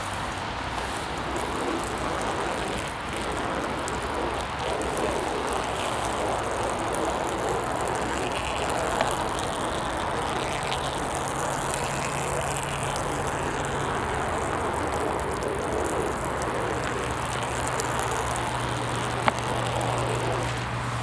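Steady outdoor background noise, with a low hum that comes in about halfway through and two short clicks.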